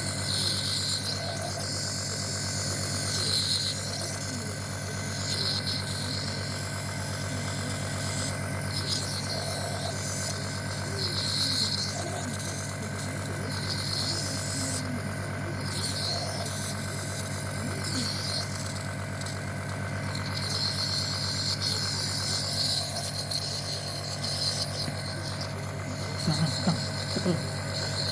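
An engine running at a steady idle, its hum holding one pitch throughout, with a higher hiss that comes and goes over it.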